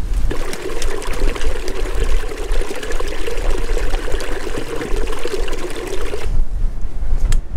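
Rainwater running and trickling over the stones of a waterlogged hill path, over the low rumble of wind on the microphone. The water sound stops suddenly about six seconds in.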